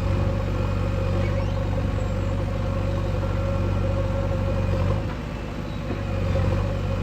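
Heavy diesel engine running steadily. Its level dips about five seconds in and picks up again a second or so later.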